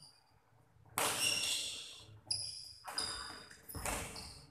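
Badminton rally: rackets striking the shuttlecock four times, roughly a second apart, after a quiet first second. Each hit is a sharp crack with a high ring that fades in the hall.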